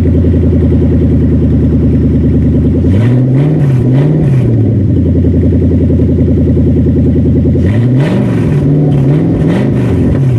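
Pickup truck engine idling loud and raw with the exhaust open right after the headers and catalytic converters, blipped up twice about three to four seconds in and several times near the end. No metal flapping is heard, which confirms the earlier rattle came from the failed exhaust parts that were cut off.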